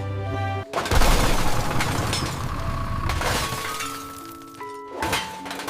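Background music cuts off and a loud crash with shattering and breaking comes about a second in, fading over a couple of seconds with a few more sharp cracks, as a toy truck smashes. The music comes back in the second half.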